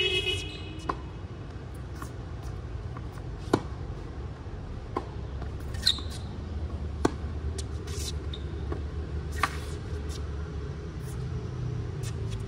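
Tennis balls struck by a racket and bouncing on a hard court: sharp, isolated pops every second or two, with a short squeak right at the start. A steady low rumble of city traffic runs underneath.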